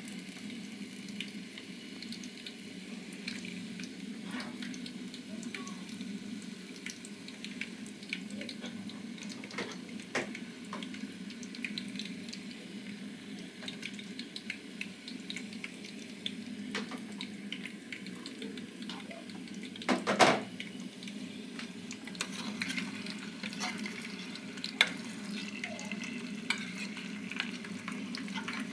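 Potato chips deep-frying in oil in a metal pot: a steady sizzle with scattered crackles. A loud short knock comes about two-thirds of the way through.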